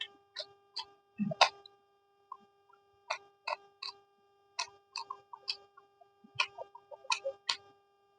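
Eating noises: irregular short, sharp clicks and crunches, about two or three a second, with one louder crunch about a second and a half in, over a faint steady hum.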